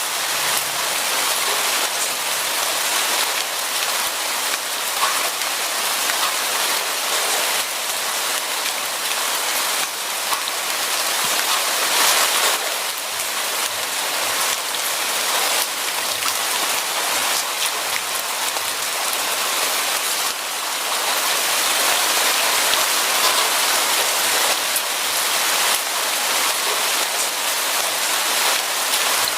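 Steady heavy rain falling on a surface, a dense even hiss with many small drop patters.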